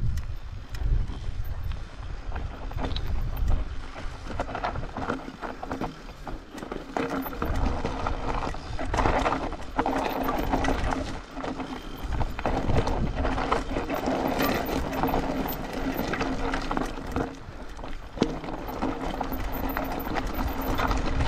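Trek Slash 8 full-suspension mountain bike descending a loose, rocky trail: tyres crunching over rock and gravel, with the chain and parts clattering on every bump and wind buffeting the microphone.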